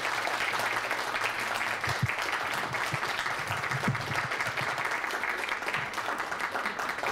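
Applause from a roomful of people clapping together, dense and steady, thinning slightly in the last couple of seconds.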